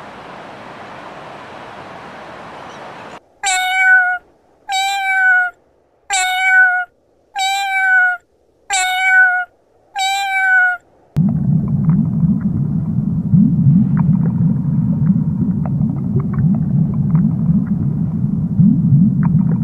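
Domestic cat meowing six times, about once a second, each meow short and falling slightly at the end. It is preceded by a steady hiss, and followed by a loud, continuous low underwater rumble with faint crackling.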